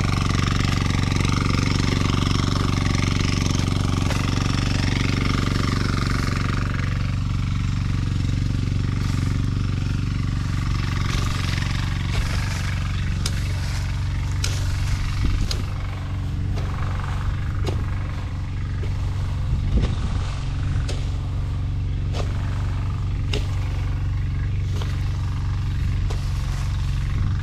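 Mini rotavator's small engine running steadily while tilling the soil, a constant low hum, with scattered sharp clicks in the second half.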